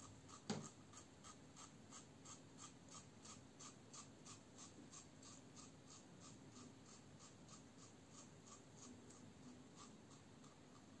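Faint, scratchy strokes of a Muhle R89 double-edge safety razor with a Treet Platinum blade scraping through lather and stubble around the chin, about three short strokes a second. There is a single soft knock about half a second in.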